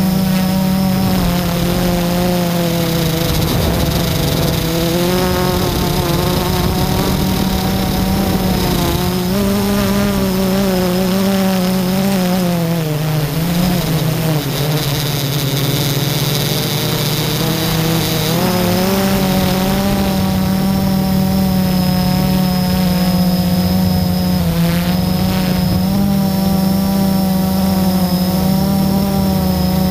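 FPV drone's electric motors and propellers buzzing, heard close up through its onboard camera, the pitch rising and falling with the throttle. The pitch dips for a few seconds about halfway through, then climbs back.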